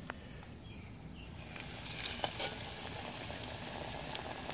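A breaded piece of catfish goes into a deep fryer's hot oil, and the oil starts sizzling about a second and a half in. The sizzle is steady, with scattered crackles.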